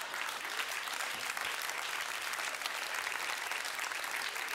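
Studio audience applauding: dense, steady clapping.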